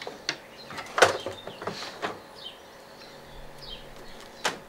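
Knocks and clatter from a washing machine's metal top panel and plastic parts as they are handled during a strip-down. The loudest knock comes about a second in, with another sharp one near the end.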